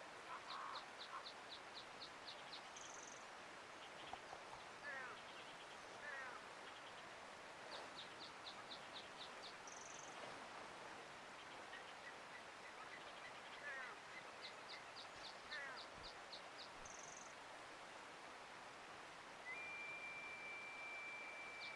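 Steady running water with several songbirds calling over it: quick trills of short high notes, brief down-slurred notes and, near the end, one long steady whistle. The same bird phrases come back about every seven seconds, as in a looped track.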